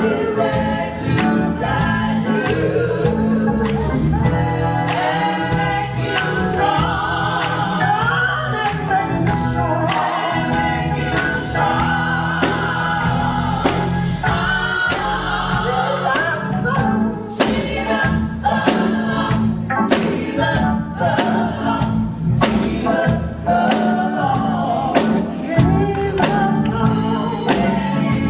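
Gospel music: a group of voices singing together with a band and a steady drum beat.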